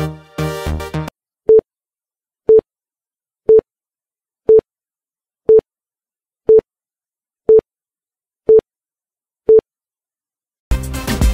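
Background dance music cuts off about a second in, followed by nine short electronic beeps on a single pitch, one a second, marking the seconds of a workout rest-interval timer. The music starts again near the end.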